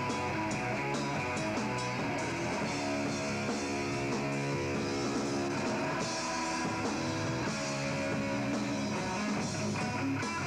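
Live rock band playing: electric guitar over a drum kit.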